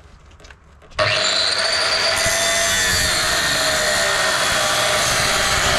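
Angle grinder with a thin cutting disc starts suddenly about a second in and runs steadily, cutting into the steel of a car's drivetrain.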